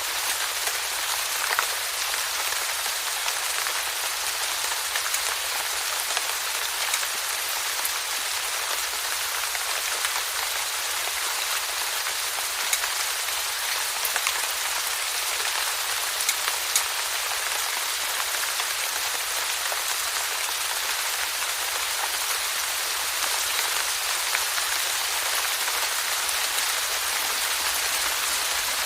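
Steady rainfall: an even hiss of falling rain with scattered individual drops ticking on a surface.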